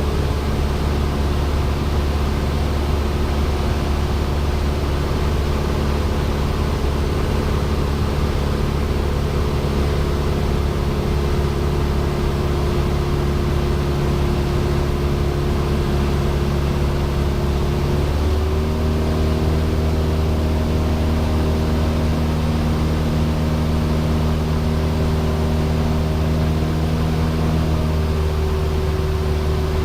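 Cessna 172's piston engine and propeller droning steadily in flight, heard from the cabin. The engine speed rises a little about two-thirds of the way through and eases back slightly near the end.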